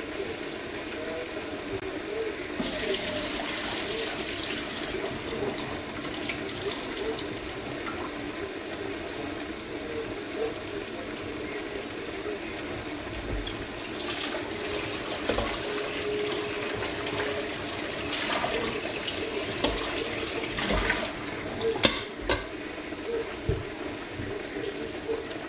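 Noodles frying in a pan, with a steady hiss of sizzling and steam that grows louder about two and a half seconds in over a steady hum. A few short clicks and knocks of utensils and a pan lid come in the second half.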